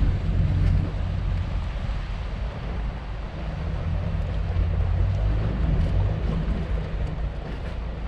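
Wind buffeting the microphone: an uneven low rumble with a light hiss above it.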